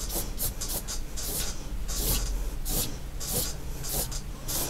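A large soft paintbrush stroking wet paint across paper, a run of separate brushing swishes roughly every half second to a second.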